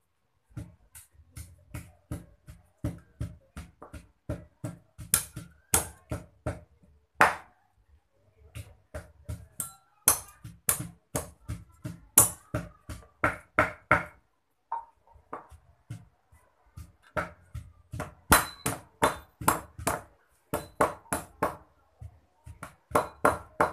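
Rapid, repeated chopping: a heavy cleaver mincing raw chicken with its bones on a round wooden chopping block, about three chops a second, with short breaks about seven and fifteen seconds in. A wooden pestle pounding in a clay mortar is mixed in.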